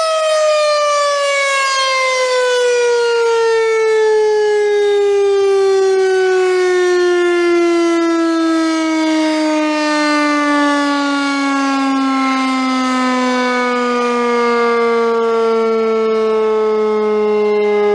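Federal Signal STH-10 outdoor warning siren winding down: its loud, many-overtoned tone starts falling right at the beginning and slides slowly and smoothly lower in pitch throughout, ending as a low hum.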